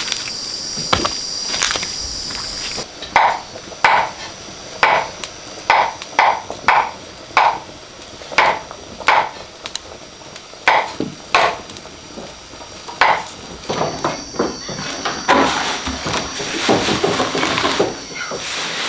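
High, steady insect buzzing, then a run of about fifteen sharp chopping strokes on wood, roughly two a second, that stops about two-thirds of the way through. Rustling of leafy greens being scooped up by hand fills most of the last few seconds while the insect buzz carries on.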